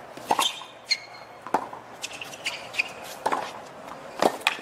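Tennis rally: a ball struck back and forth by rackets, about four hits roughly a second apart, with sneakers squeaking on the hard court between shots.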